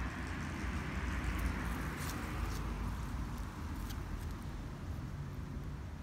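Steady low outdoor rumble and hiss, with a few faint clicks about two and four seconds in.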